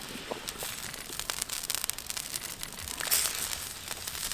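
Open wood fire crackling under a wok of fish soup: a steady run of small pops and clicks, louder for a moment about three seconds in.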